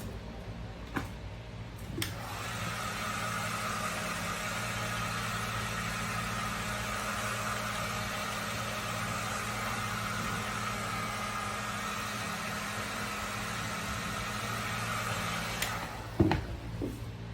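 Steady whir of a small electric blower, switched on with a click about two seconds in and off with a click near the end, followed by a couple of loud knocks.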